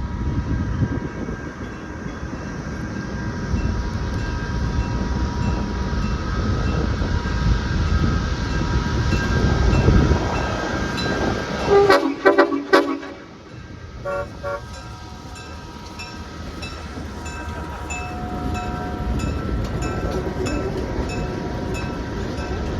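Train passing close by, its low rumble building for about ten seconds, then a few short horn toots about twelve seconds in, after which the rumble drops away to a quieter, steady sound.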